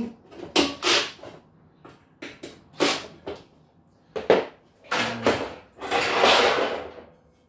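Metal cage frame parts clattering and knocking as they are handled and shifted, with a cordless drill set down among them. About six seconds in there is a longer scraping rush as a frame section is lifted.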